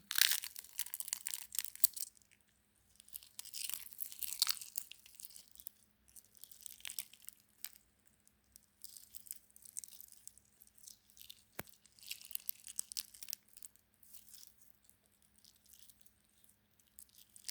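Slime-filled eggshell being cracked and picked apart: crunchy, crackling shell breaking in repeated bursts with short pauses between, and a single sharp click partway through.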